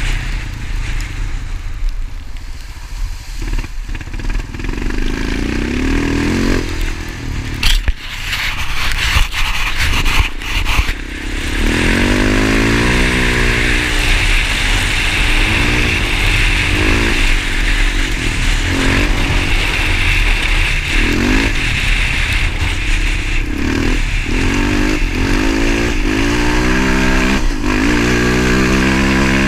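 Motorcycle engine running, its pitch rising and falling again and again from about twelve seconds in as the bike accelerates and eases off, over steady wind and road noise. A few sharp knocks come about eight to eleven seconds in.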